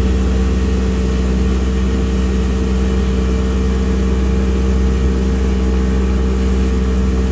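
An engine running steadily at a constant speed, a loud, even low hum with no change in pitch.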